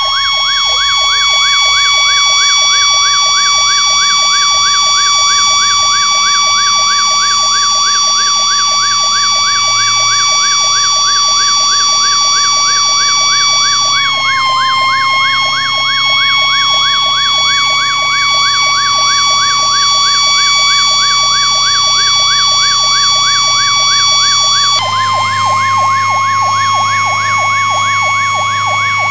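Fire engine sirens sounding together: a fast electronic yelp warbling several times a second over a steady high siren tone, which sags briefly in pitch about halfway through and again near the end. The truck's engine runs low underneath.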